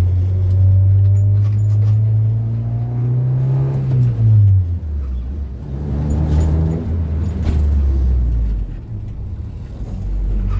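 Car engine running under load: its pitch climbs slowly for about four seconds, then drops sharply and holds lower before easing off.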